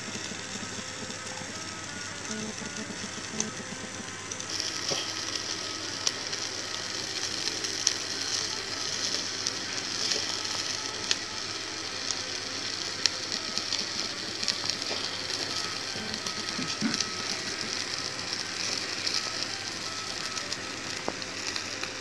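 Chicken wings sizzling on a wire grill over charcoal, a steady hiss with scattered crackles and pops, growing louder about four seconds in.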